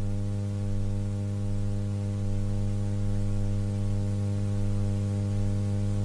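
Steady electrical mains hum from a public-address system: a deep, unchanging drone with a ladder of higher overtones over a faint hiss.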